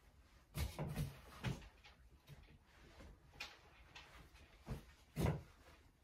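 Clothes hangers knocking and clattering on a wardrobe rail as clothes are pulled out: a quick cluster of knocks about a second in, then a few single knocks, the loudest near the end.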